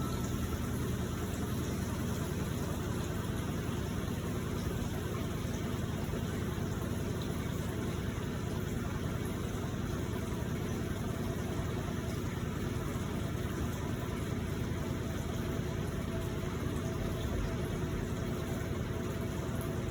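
Electrolux LPE16 washing machine running, a steady motor hum with a few faint steady tones and no breaks.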